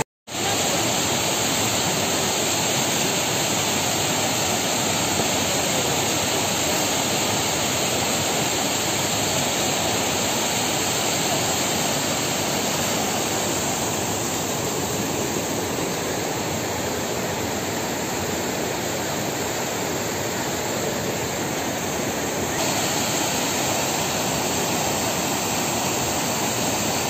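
Rushing water of a spring and stream overflowing after heavy rain: a steady, loud rush, broken only by a momentary gap at the very start.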